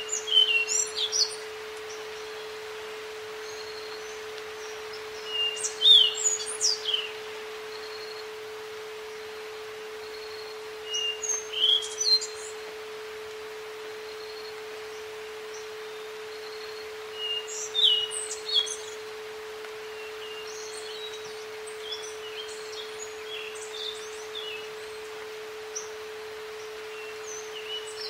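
A steady mid-pitched pure tone, an isochronic entrainment tone, under a songbird singing a short chirping phrase about every six seconds, with softer scattered chirps near the end. A faint high beep repeats over a soft outdoor hiss.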